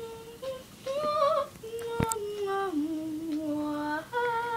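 A young girl's voice singing a slow tune in long held notes that step up and down in pitch. There is one sharp click about two seconds in.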